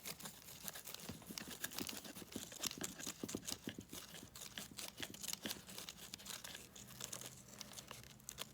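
Hands working on a radio-control crawler truck, putting a plastic part back in place: a quick run of light clicks, taps and rustling.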